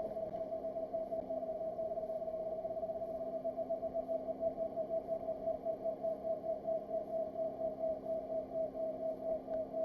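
Whistle-like whine from the front drivetrain of a Suzuki Solio MA36S mild-hybrid 4WD, a steady high tone that swells and fades a few times a second and pulses more strongly about three and a half seconds in. It is the cold-weather noise that comes and goes with road speed rather than engine speed, traced to a faulty drive shaft.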